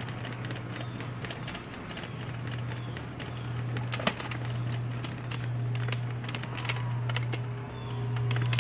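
A steady low hum that swells slightly near the end, with scattered light footsteps on brick pavers.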